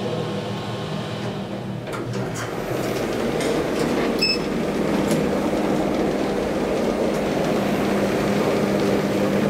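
Elevator car standing with its doors open, a steady hum in the cab. About four seconds in, the floor button is pressed and gives a short electronic beep. From about three seconds in, a louder, steady rumble of background noise takes over.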